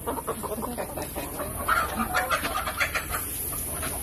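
A crowd of Dekalb Brown laying hens clucking and squawking, many short overlapping calls. A steady high hiss comes in about three seconds in.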